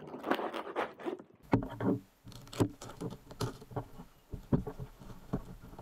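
Taped cardboard parcel being cut and torn open: irregular rustling, scraping and tearing of packaging, with a few light knocks of the box against a tabletop.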